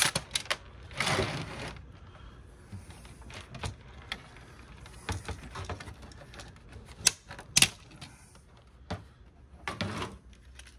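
Scattered clicks, taps and light knocks of plastic parts and loose screws as a DVD player's casing and circuit board are handled and pulled apart, with a short noisy burst about a second in and a couple of sharper clicks past the middle.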